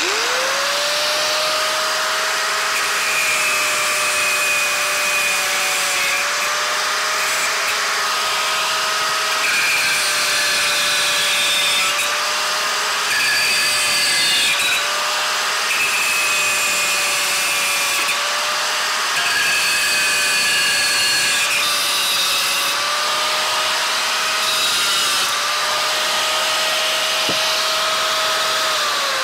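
Angle grinder starting up and cutting through the steel spokes of a motorcycle wheel one after another: a steady motor whine that sags slightly each time the disc bites, with a hissing grind from the cut. The motor spins down at the very end.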